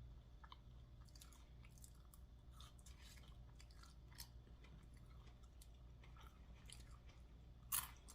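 A person faintly chewing food, scattered soft mouth clicks and crunches, with one sharper click near the end.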